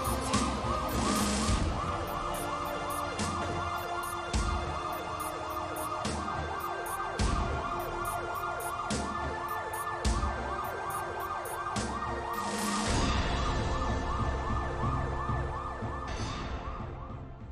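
Police car siren sounding a fast, repeating up-and-down wail, with scattered sharp knocks over it. It fades away near the end.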